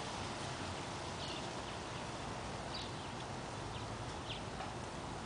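Faint outdoor ambience: a steady hiss with a few faint, short, high chirps scattered through it.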